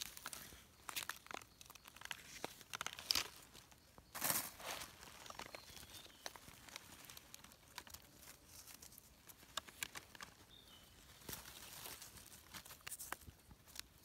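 Faint crinkling of dry leaf litter and scraping as a red russula mushroom is picked and its soil-caked stem base is trimmed with a small knife. The scrapes and crinkles come in scattered short bursts, the strongest about four seconds in.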